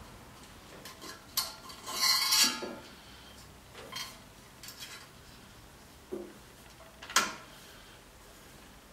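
Metal parts of a motorcycle exhaust being handled and fitted by hand: a series of separate clinks and knocks, with the loudest, a longer scraping rattle, about two seconds in and a sharp clink near the end.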